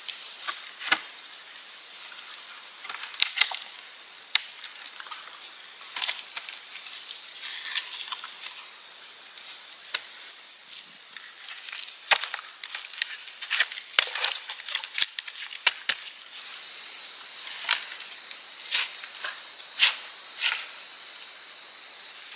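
Sharp, irregular wooden knocks and snaps, a few every second or two, as sticks and branches are handled and knocked together. A faint steady high tone sits under them.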